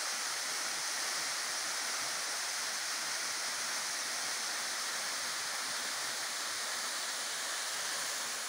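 A thin waterfall pouring down a rock face: a steady, even rush of falling water.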